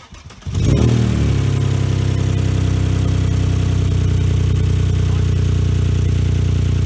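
A Saab 900 SE's V6 is turned over on the starter with the key. About half a second in it spins up and then holds a steady, even whir. Cranking without starting: the fuel pump cannot be heard priming.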